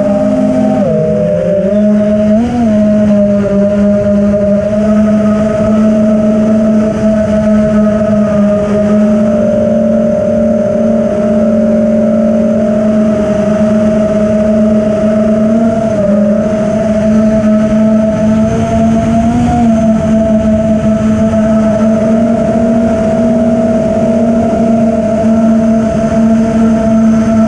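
FPV racing quadcopter's Hyperlite 2207 1922kv brushless motors and propellers whining steadily in flight, heard from the drone's onboard GoPro Session 5. Several steady tones sound together, and their pitch dips and rises briefly with throttle changes near the start and twice in the middle.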